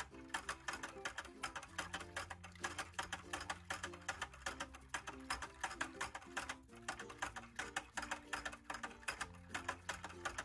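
Light, bouncy background music: quick, regular notes over a steady bass line.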